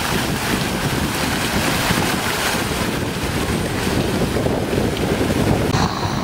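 Wind buffeting the microphone: a dense, fluttering low rumble over a steady hiss, with the hiss falling away abruptly near the end.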